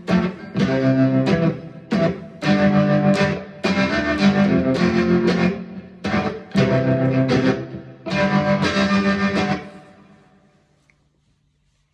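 Instrumental passage of a guitar-driven song: strummed, distorted guitar chords in a rhythmic pattern that stop about ten seconds in as the song ends.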